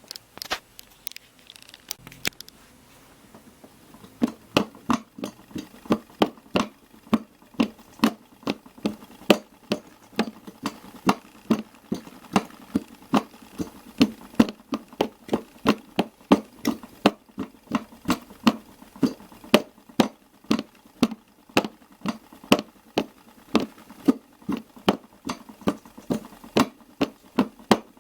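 DDR Piko Professional WS5522 washing machine in its first intermediate spin: a few irregular clicks, then from about four seconds in a steady, even knocking at about three knocks a second.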